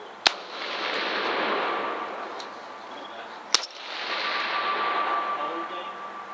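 Two rifle shots about three seconds apart, each a sharp crack followed by a rolling echo that dies away over about two seconds.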